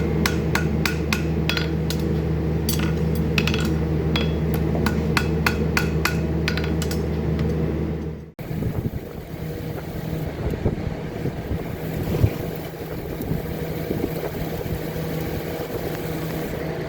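Metal hammer blows on a horseshoe: quick, irregular ringing taps over a steady low machine hum. About eight seconds in, the sound cuts off abruptly. A duller, noisy stretch with scattered knocks follows.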